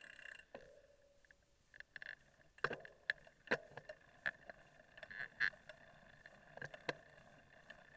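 Muffled, irregular knocks and rattles of a mountain bike and its mounted camera jolting over a rough dirt trail, with a faint steady hum behind them.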